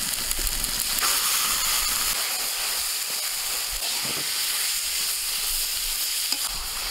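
Crumbled green jackfruit and spice mixture sizzling steadily in hot mustard oil in a metal kadai while it is stirred with a metal spatula.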